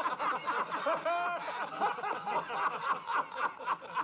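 A group of men laughing together, several voices overlapping.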